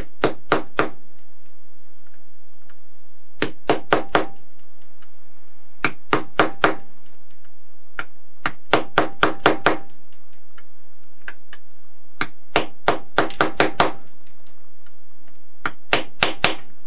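Small hammer tapping on a quarter-inch socket to drive a new ball bearing into a brushless RC motor. The taps come in six short bursts of about four to seven quick strikes, with pauses between. Toward the end they become a solid whack, the sign that the bearing is seated all the way down.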